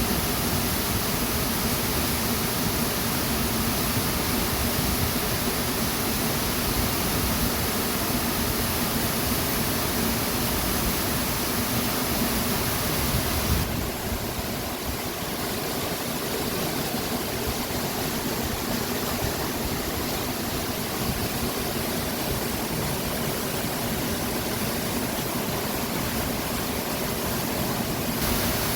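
Mountain waterfall and stream rushing steadily, a loud hiss of falling water. About halfway through the sound changes abruptly, becoming slightly softer and less hissy.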